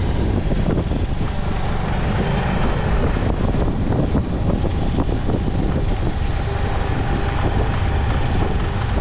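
Motorbike riding noise: a steady low rumble of wind buffeting the microphone mixed with the engine of a moving bike.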